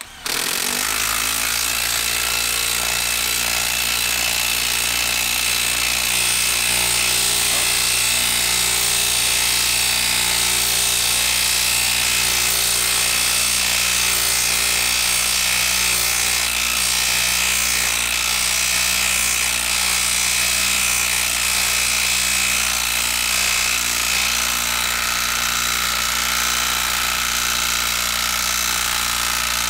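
Makita 12-volt impact driver hammering steadily without a break as it drives a long lag screw into a wooden log through a socket and adapter. This is a long, hard drive under load.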